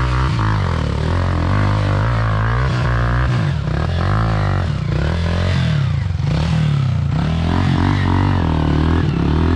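Off-road motorcycle engine revving up and down as the bike is ridden over rough ground, with some clattering.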